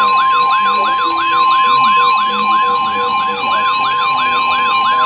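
NOAA Weather Radio receivers sounding a severe thunderstorm alert: the broadcast's steady 1050 Hz warning alarm tone under the radios' fast warbling siren, about two and a half sweeps a second, with a lower intermittent beeping behind them.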